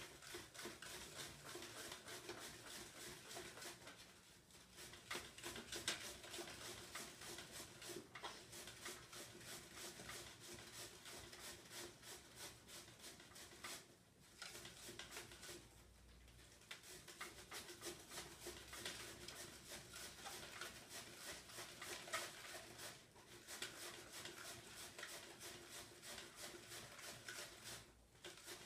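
White cabbage rubbed fast up and down a flat hand grater, a faint continuous run of rasping scrapes. The scraping stops for a moment several times.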